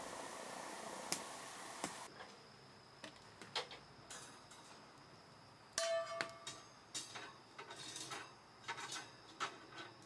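Wood fire crackling with a couple of sharp pops, then a string of metal clinks and clanks, with one short ringing scrape about six seconds in, as a wire grill grate is slid into place over the fire.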